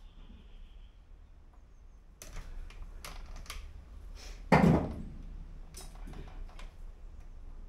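Scattered sharp clicks of metal parts being handled and fitted inside a bare car door shell, with one loud, ringing thump against the door about halfway through.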